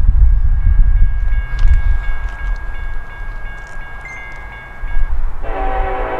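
Grade-crossing warning bell ringing over the low rumble of an approaching Norfolk Southern freight train. About five seconds in, the lead locomotive's air horn starts blowing loudly.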